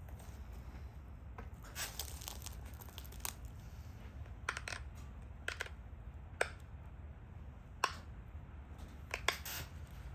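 Pressure flaking the edge of a stone Dalton point: sharp clicks and snaps as small flakes pop off under the flaker, about a dozen of them spread irregularly, some in quick pairs.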